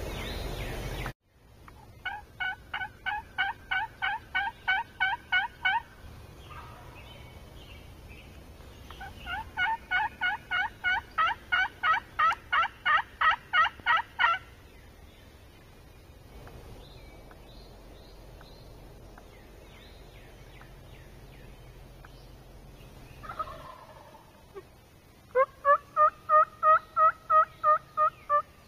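Turkey yelping in three long runs of rapid, evenly spaced notes, about four a second, with a shorter lower-pitched run near the end.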